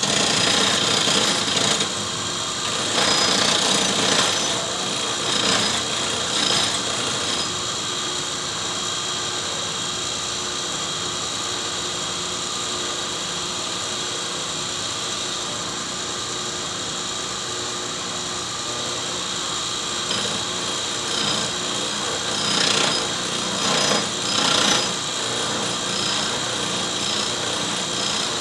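Homemade belt-driven camshaft grinder running, its abrasive wheel spinning with a steady high whine. The wheel grinds against a cam lobe in louder rasping surges during the first several seconds and again about three-quarters of the way through.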